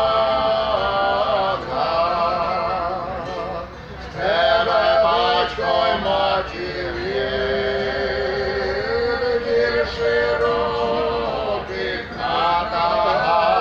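Male voice singing a Ukrainian folk song in long phrases of held, wavering notes, over a steady accompaniment of folk string instruments.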